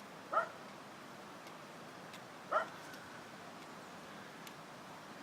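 A dog gives two short, high barks about two seconds apart.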